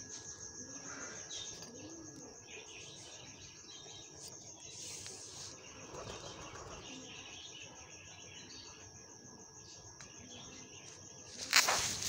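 Steady high-pitched insect trill with faint bird chirps, and a sudden loud noise burst near the end.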